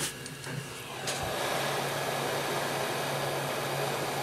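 Handheld heat gun blowing hot air, a steady whoosh with a low hum that starts about a second in. It is warming a tablet's circuit board to soften the double-sided tape holding it down.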